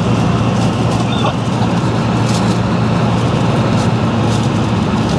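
Cessna T-210 Centurion's turbocharged piston engine and propeller droning steadily in cruise flight.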